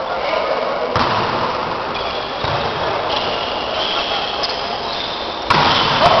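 Volleyball rally in an echoing sports hall: a sharp hit of the ball about a second in and a duller thud a little later, over steady crowd chatter that jumps to loud shouting near the end.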